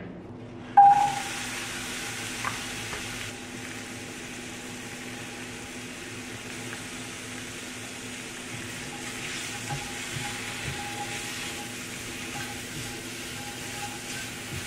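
Diced apple sizzling in hot coconut oil in a stainless steel frying pan, starting suddenly and loudest about a second in, then a steady sizzle, with light stirring.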